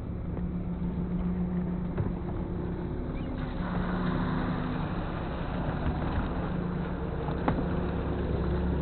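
Small fishing boat's engine running steadily, with water and wind hiss over it and a sharp knock on the deck near the end.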